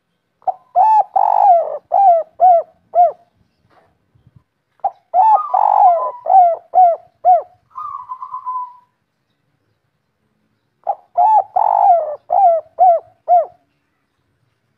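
Spotted dove cooing in three phrases spaced a few seconds apart, each a run of six or seven coo notes, in the local 'kuk 3' song type. A brief rougher sound follows the second phrase.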